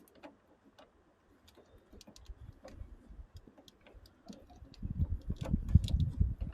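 Vehicle on a weak battery failing to start: scattered light clicks, then about five seconds in a loud low rattling rumble as the starter tries to crank. The engine does not catch, likely because the battery has run too low.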